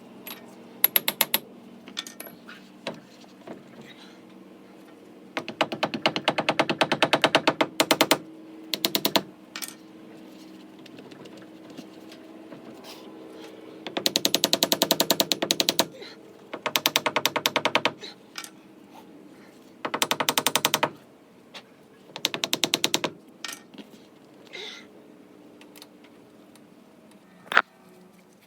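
Impact wrench hammering in about six bursts of half a second to three seconds each, with a few single clicks between them, as bolts are run in on a car's hub assembly.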